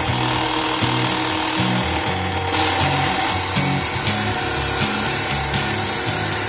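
Bench belt sander running, with a block held against the moving abrasive belt giving a steady grinding hiss that gets louder from about two and a half seconds in.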